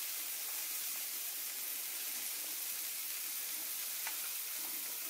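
Yogurt-marinated chicken wings sizzling steadily in a little oil on a hot iron tawa, the moisture from the yogurt marinade making the oil spit.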